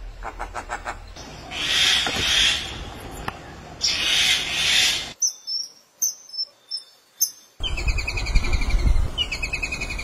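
Calls of several different birds following one another with abrupt changes: harsh, raspy calls in the first half, short high whistles in the middle, then quick runs of chirps that fall in pitch.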